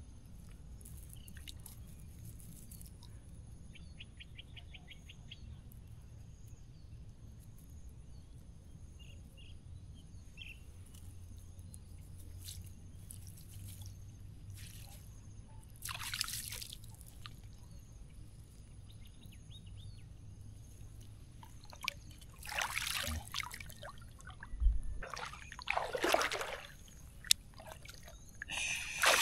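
Water dripping and splashing as a wet net and its catch of shrimp are handled by someone standing in the water. There are faint bird chirps early on, a short splash about 16 seconds in, and a run of louder splashes in the last third.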